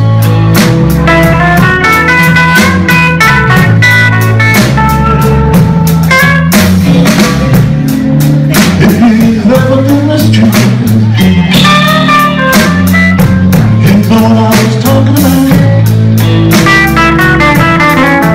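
Live electric blues band playing an instrumental passage: an electric guitar plays strings of single-note lead lines over drums and the band's steady backing.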